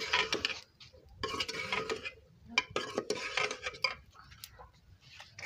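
A metal ladle stirring and scraping inside a steel cooking pot of potatoes and eggs, in four strokes about a second apart with a light metallic ring.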